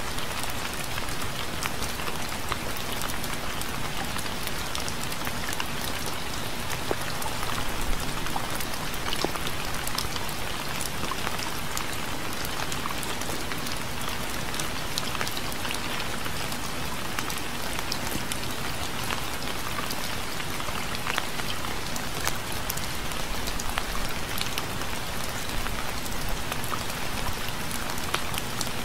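Steady rain falling and pattering on a surface, a dense hiss of many small drop impacts.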